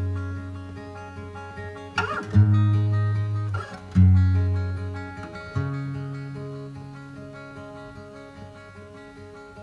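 Background music: an acoustic guitar strumming sustained chords, with a new chord about every second and a half, then ringing out and slowly fading.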